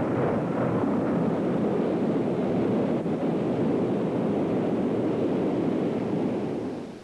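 Strong wind blowing: a steady rushing noise that fades out near the end.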